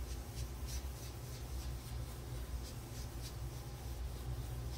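Repeated soft swishes of an ink-blending tool rubbed over cardstock, working blue ink into the paper, over a low steady hum.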